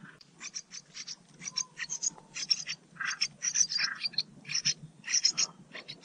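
Blackbird nestlings begging for food: a rapid chorus of short, high squeaky cheeps that grows denser and louder from about three seconds in, as an adult comes to the nest.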